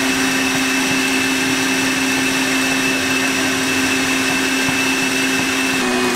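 KitchenAid Ultra Power stand mixer running at high speed with its wire whisk, whipping egg whites into meringue in a stainless steel bowl: a loud, steady motor whir and whine. At the very end it is switched off and the pitch starts to drop.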